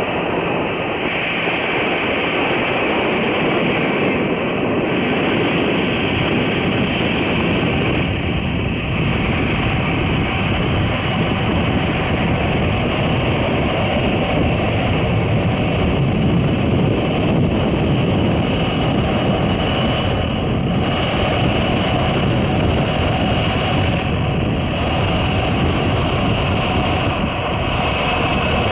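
Airbus A340's four jet engines running at taxi power as the airliner rolls past, a steady loud rumble and hiss with a thin high whine.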